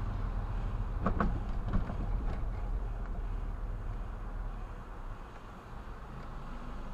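Car cabin noise while driving: low engine and tyre rumble with road hiss, broken by a few short knocks and rattles about a second in. The rumble quietens near the end as the car slows at an intersection.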